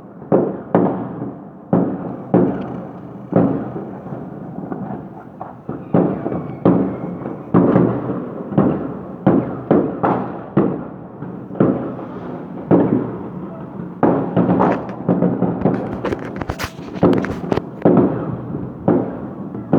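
Fireworks going off: a long irregular string of sharp bangs, about one or two a second, each trailing off in a rumbling echo. The bangs come thicker and faster toward the end.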